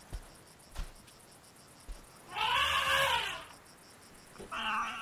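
Young desert elephant calling: a squealing call about halfway through that rises and falls in pitch, then a second, steadier call near the end. It is a contact call to find the separated family. A few soft thuds of footfalls come before the first call.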